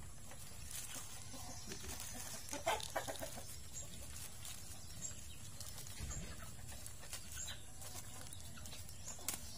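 Plastic wrap being slowly peeled from a marcot's soil-and-root ball, with faint crinkling. A short run of faint bird calls, like clucking, comes about three seconds in, and a few weaker ones later.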